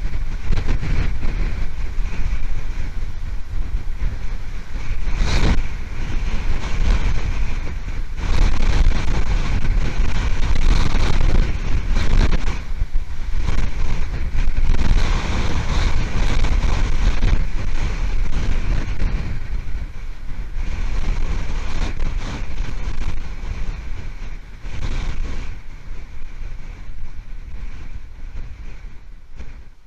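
Hurricane-force wind buffeting the eagle nest-cam microphone in heavy gusts, easing off somewhat in the last few seconds.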